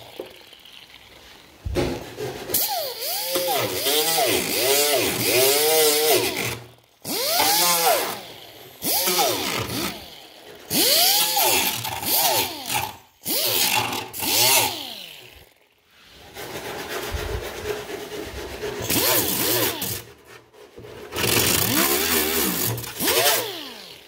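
Grinder grinding out broken, weak fiberglass in a cracked hood, run in short bursts. Its whine rises and falls with each burst, and it stops abruptly several times.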